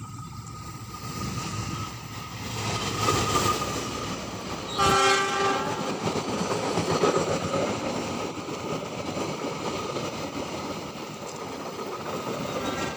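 Train approaching and running past at speed, wheels clattering on the rails, with one short horn blast about five seconds in.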